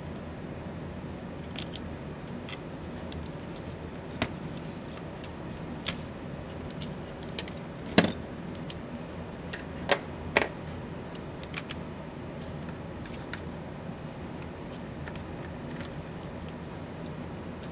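Scattered sharp clicks and taps of small laptop parts and hand tools being handled during disassembly, irregular and a second or more apart, the loudest about halfway through, over a steady low background hum.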